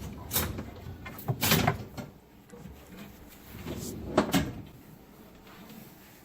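Knocks and clunks of a built-in dishwasher being worked loose and moved out from under the counter: a cluster of hard knocks in the first two seconds and another about four seconds in.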